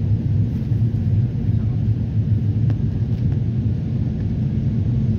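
Steady low rumble of a jet airliner's cabin in flight: engine and airflow noise.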